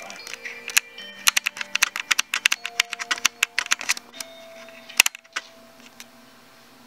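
Rapid run of small clicks, a camera's control dial being turned to open up the exposure, followed by one sharper click about five seconds in. Soft held music notes from a television play faintly underneath.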